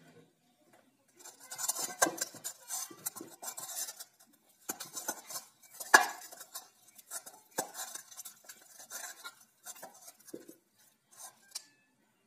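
Oiled wheat-flour dough being kneaded by hand in a stainless-steel bowl: irregular knocks, scrapes and rubbing against the bowl's metal, loudest about six seconds in.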